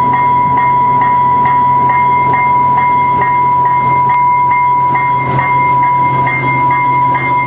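A train bell ringing rapidly and steadily, about two strikes a second, over the low running hum of an Amtrak Cascades diesel locomotive moving slowly past the platform.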